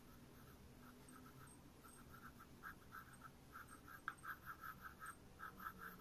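Graphite pencil scratching across paper in quick, faint hatching strokes, about three a second, getting more regular and louder from about two seconds in, with one sharper tick about four seconds in.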